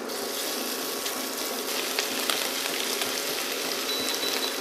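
Strips of beef fillet sizzling in hot oil and butter in a stainless steel sauté pan as pieces are laid in, a steady hiss with small pops. Near the end, a short beep from the induction hob's touch control.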